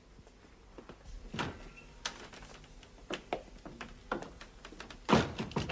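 Footsteps and scattered knocks on a hard floor in a small room, irregularly spaced, with a louder thud near the end.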